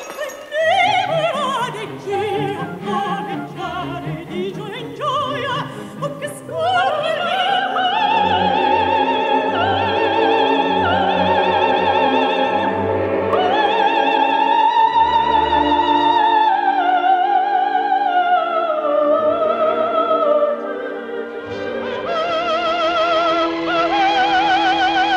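Operatic singing with orchestral accompaniment: a high solo voice with wide vibrato sustains long notes, rising to a held high note about halfway through and falling away near the end.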